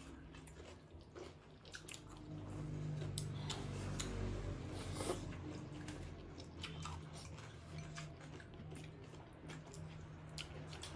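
Close mouth sounds of people eating rice and meat by hand: chewing, smacking and small wet clicks. A low hum comes up underneath through the middle of the stretch.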